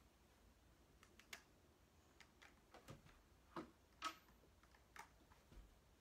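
Faint, irregular clicks and taps from walking slowly with a single aluminium forearm crutch, the loudest about four seconds in.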